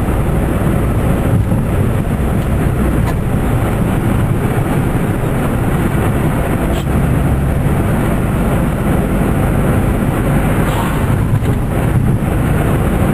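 Steady engine and road noise inside the cabin of a 1997 Geo Metro driving at moderate speed, with tyres running on a wet road.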